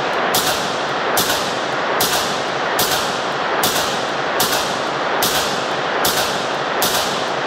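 3D-printed CZ Scorpion-pattern 9mm carbine fired semi-automatically: nine shots at an even pace of a little more than one a second, each ringing off the walls of an indoor range. The steady string shows the home-printed gun cycling round after round on its first outing.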